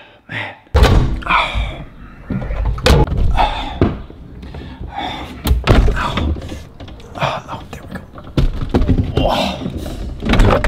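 Refrigerator door and the containers inside being handled: knocks and thuds of jars and cartons on the door shelves and the door being moved, with some indistinct voice between them.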